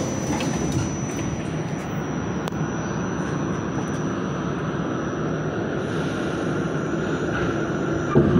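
New York City subway train running: a steady rumble and rail noise with a thin, high, steady whine, and a short clunk near the end.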